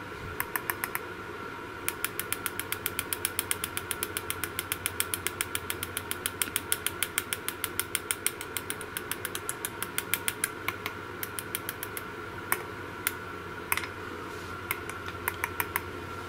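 Rapid, regular electrical clicking, about seven clicks a second, from an experimental circuit clipped to a 12 V car battery, over a faint steady whine. The clicking stops about eleven seconds in, and a few scattered, louder clicks follow.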